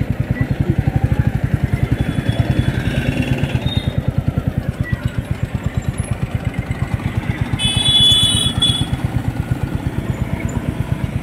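Royal Enfield 350 single-cylinder motorcycle engine running at low speed, with an even, rapid beat of exhaust pulses. A brief high-pitched tone cuts in about eight seconds in, the loudest moment.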